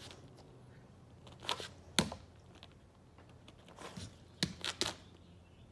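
A Samoyed's claws scraping and clicking against the metal-and-plastic threshold track of a sliding glass door as it paws at it, in a handful of short, sharp strokes: two about a second and a half to two seconds in, and a quick cluster of three around four and a half seconds in.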